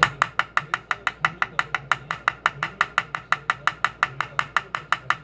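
A small brass-headed hammer tapping a small pin into the corner of a wooden tray's frame: a fast, even run of light strikes, about six a second.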